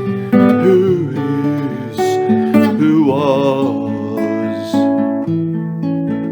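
Music led by acoustic guitar, plucked and strummed, with new notes struck about every second and a wavering melody line over them.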